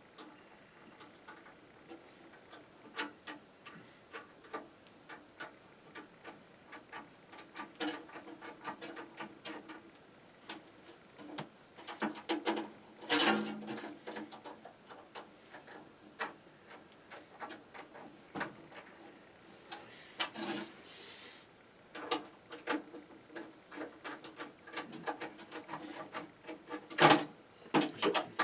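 Hands and tools working on a desktop computer case: irregular small clicks, taps and rubbing of metal and plastic parts, with louder clattering about 13 seconds in and again near the end.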